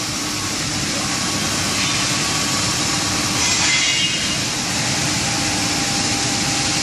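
CNC milling machine running, its spindle turning and the cutter working metal. A steady mechanical hum over dense noise, with a brief higher whine about three and a half seconds in.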